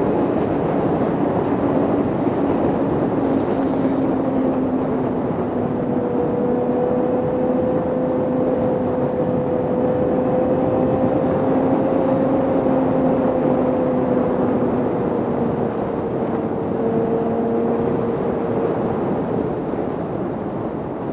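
Sport motorcycle engine cruising at a steady road speed, with wind rushing over the microphone. The engine note stays even, dips a little lower in the second half, and the sound eases slightly near the end.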